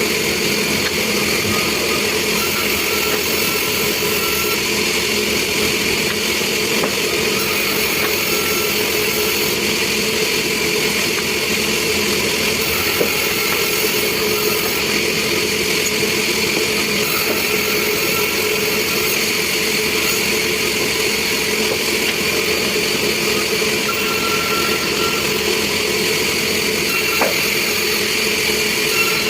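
Sawmill machinery running steadily, with a higher sound coming in for a couple of seconds about every five seconds.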